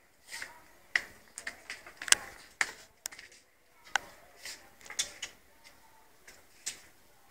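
A calf's hooves clicking and tapping irregularly on a concrete floor as it steps about, with the sharpest tap about two seconds in.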